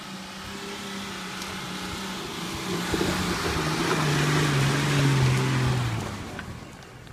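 A four-wheel-drive SUV's engine labouring up a steep dirt climb, its revs sagging under load as it draws closer. It is loudest as it passes close by and fades as it pulls away, with tyres crunching and scrabbling on loose dirt and stones.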